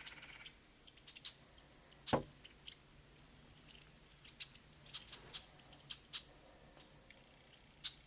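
Faint scattered clicks and ticks, with one sharper knock about two seconds in.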